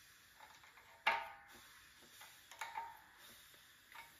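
Small wrench on the crank bolt of an LS engine, clicking and clinking as it is worked to press the new crank timing gear onto the crank snout: a few sharp metallic clicks with a short ring, the loudest about a second in.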